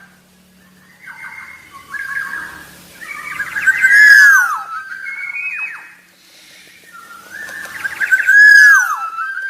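Black-naped oriole singing: phrases of clear, fluty whistles with downward-swooping notes, repeated every few seconds, loudest about four seconds in and again near the end.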